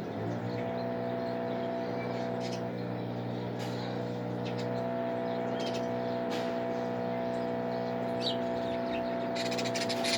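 A motor engine running steadily at an even pitch, starting at the opening, with scattered bird chirps over it and a quick flurry of chirps near the end.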